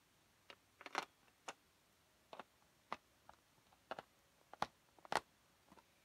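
Light, irregular clicks and taps of plastic Lego pieces being handled on a Lego baseplate, about a dozen at uneven spacing.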